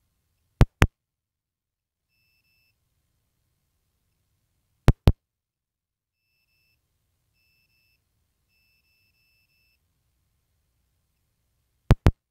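Three pairs of sharp, loud clicks, each pair a quick double click, about a second in, about five seconds in and near the end, over otherwise near silence.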